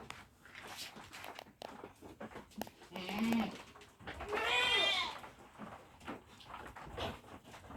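Nubian goats bleating: a short, lower call about three seconds in, then a longer, louder bleat with a wavering pitch about a second later.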